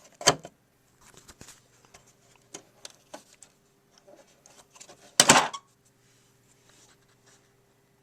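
Plastic keyboard keys of a Yamaha YPG-525 clicking and clattering as they are lifted out of the tracks they lock into. There is a sharp click just after the start, small taps after it, and a louder rattle about five seconds in.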